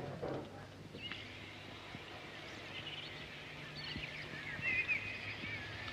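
Birds singing, a string of short chirping calls starting about a second in, over a low steady hum.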